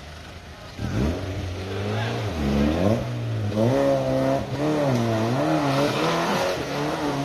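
Land Rover Freelander engine revving hard, rising and falling over and over, as it drives up a steep muddy slope with its wheels spinning.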